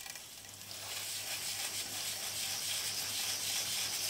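Garden hose spray nozzle hissing as water jets onto a bicycle rear wheel's cassette, rinsing it off. The spray gets louder within the first second and then runs steadily.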